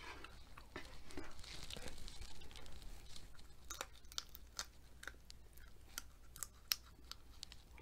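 Close-up eating sounds: a person biting and chewing food, with a run of sharp, short mouth clicks through the second half.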